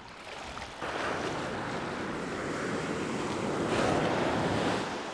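Ocean surf: a wave breaking and washing up the sand, swelling about a second in and easing off near the end.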